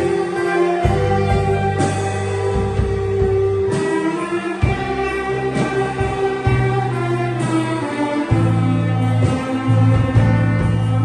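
A small orchestra playing an instrumental piece: sustained string melody over plucked guitar and a bass line that moves every second or two.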